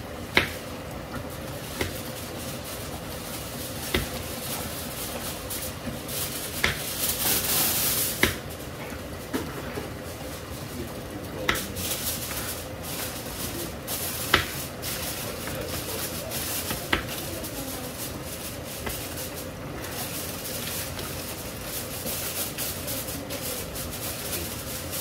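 Kitchen utensils and dishes knocking and clattering during food preparation: about ten sharp, irregular knocks. A short hiss comes about seven seconds in, and a faint steady hum runs underneath.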